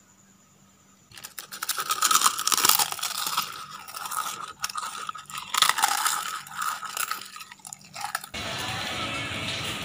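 Crisp khanom bueang (Thai crispy pancake) shells crunching and crackling close to the microphone, starting about a second in and running in dense irregular crackles. Near the end it cuts suddenly to steady market crowd noise.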